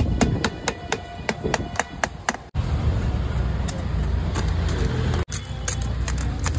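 A long rod ramming the packing down between a clay tandoor liner and its steel drum: a fast, even run of sharp knocks, about four a second. After an abrupt cut, a steady low rumble takes over, with the knocks only faint.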